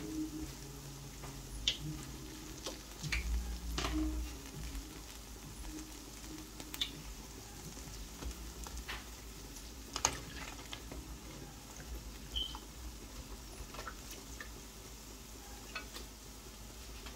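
Pholourie batter balls deep-frying in hot oil: a steady sizzle with scattered sharp pops and clicks as a slotted spoon turns them.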